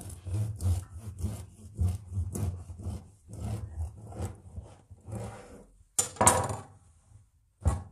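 Knife sawing back and forth through the crust of a seeded whole wheat spelt loaf on a wooden countertop, about two strokes a second, with a few louder strokes about six seconds in.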